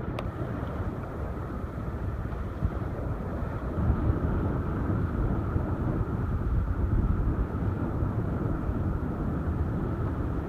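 Water rushing and splashing along the hull of a Jeanneau 54 sailing yacht under sail, with wind gusting on the microphone; a steady hiss with uneven low buffeting.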